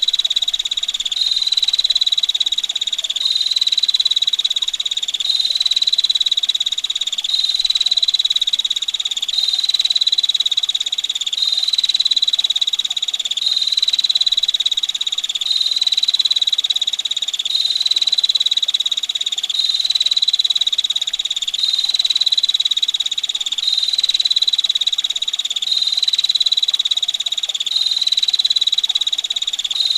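Female prinia (prenjak) giving its rapid, buzzy, high-pitched trill, repeated in near-identical phrases about two seconds long with only brief breaks between them.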